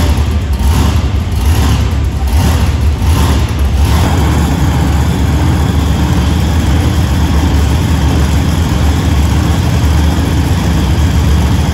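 Monster truck engine running at a loud idle, pulsing about twice a second for the first few seconds and then running steadily.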